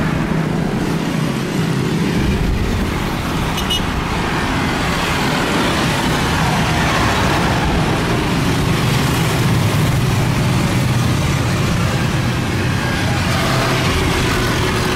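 Steady rumble of road traffic, an even noise with a low hum running through it.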